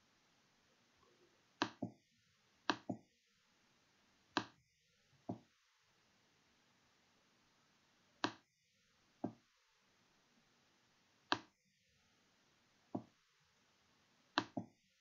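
Computer mouse clicking: about a dozen sharp clicks spread out, several in quick pairs like a double-click, over faint steady hiss.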